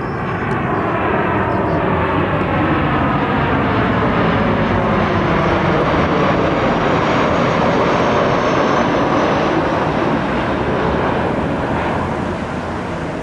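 Airliner on landing approach passing low overhead. Its engine noise swells to a peak midway and eases off near the end, with tones that fall in pitch as it goes by.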